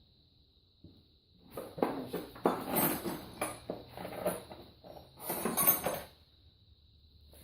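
Metal hand tools clinking and clattering against each other as they are rummaged through, in a busy run of about four seconds that starts after a short quiet and stops abruptly.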